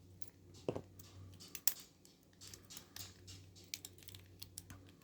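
Light, irregular clicks and taps of a Paclock 90A Pro padlock and its parts being handled, with a few sharper knocks among them.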